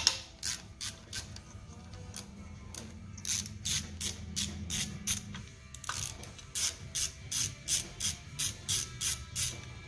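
Hand socket ratchet clicking in a steady run of quick strokes, about three to four clicks a second, as it turns out a 10 mm bolt on an engine.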